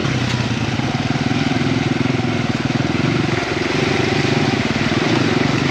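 Honda XR100's small air-cooled four-stroke single running at a steady part throttle as the dirt bike rides through slush and standing water.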